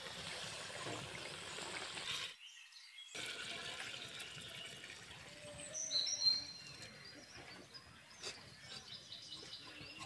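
Fish curry simmering in an aluminium pot, then, after a brief break, the curry pouring from the pot into a steel bowl about six seconds in. Birds chirp in the background.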